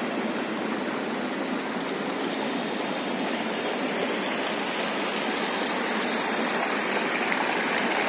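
Sea waves washing onto a sandy beach: a steady, even rush of surf noise.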